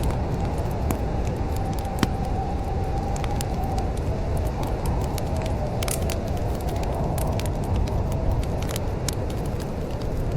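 Wood fire crackling in a fireplace: scattered sharp pops and snaps at irregular intervals over a steady low rumble, with a faint wavering whistle underneath.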